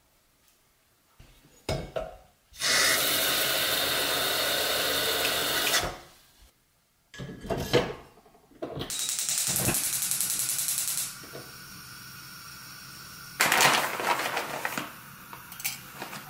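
Kitchen sounds around a gas stove and a cast-iron kettle: a few clicks and knocks, two long stretches of steady rushing hiss and a quieter steady hiss after them. Near the end there is a short loud rattle, dried tea tipped from a bag into a stoneware pot, then a few light clicks.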